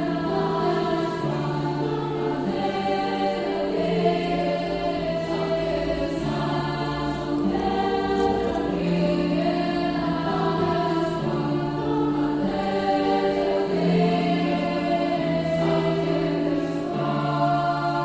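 A choir singing in sustained chords, the notes shifting every second or two.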